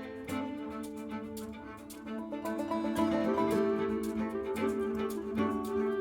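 Background music led by bowed strings, with a steady beat, getting louder about two seconds in.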